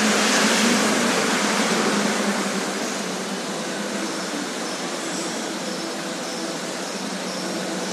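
Steady rushing noise with a faint low hum beneath it, easing a little after about two seconds.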